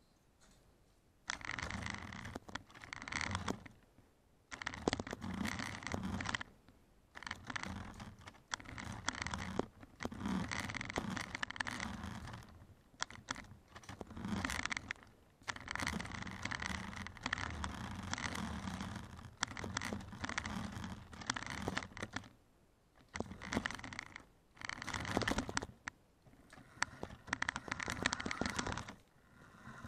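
Small electric motor and plastic gearbox of a cheap toy RC car whirring in repeated bursts of one to three seconds as the throttle is worked, with short pauses between, heard close up from a camera riding on the car.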